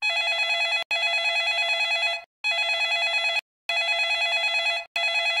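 Telephone ringing: a high, rapidly trilling electronic ring in runs of about one to one and a half seconds with short breaks, the sound of a phone call being placed and not yet answered.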